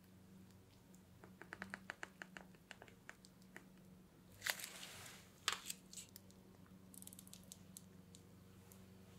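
Plastic piping bag crinkling and crackling in the hand as it is squeezed to pipe thick chocolate batter, first as a quick run of small clicks, then a louder rustle and a sharp click about midway, and lighter crackles near the end.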